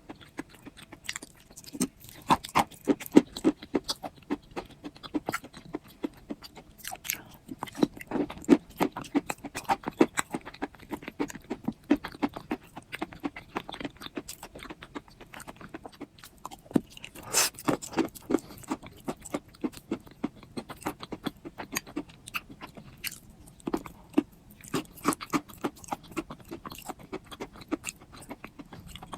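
Soft clay pieces crunching, with many small crisp crackles in quick, uneven clusters and a few short lulls.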